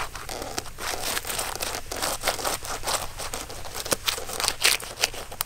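A frayed plant-stalk brush dabbing and scraping chili sauce onto the crisp skin of a spit-roasted chicken: dense, irregular wet crackling and rustling, with a few sharper clicks toward the end.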